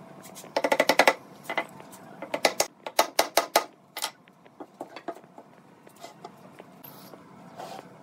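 Wooden mallet tapping wooden chair parts together into their joints: a fast run of taps just after half a second in, a second run of knocks from about two and a half to three and a half seconds in, then a few lighter taps.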